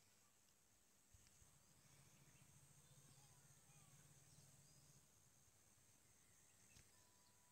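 Near silence: faint outdoor background with a soft low hum through the middle seconds and a couple of faint clicks.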